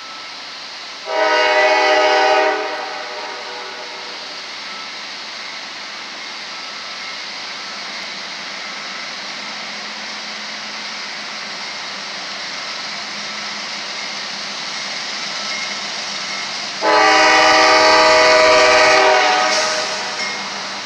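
Diesel freight locomotive's air horn sounding two blasts as the train approaches the grade crossing: a short one about a second in and a longer one near the end. Between the blasts a steady hiss slowly grows louder.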